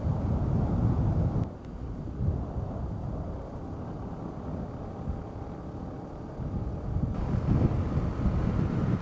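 Wind buffeting the camera microphone as a low rumble, over a Yamaha WR250R dual-sport motorcycle riding on a gravel road. The rumble eases about a second and a half in and builds again near the end.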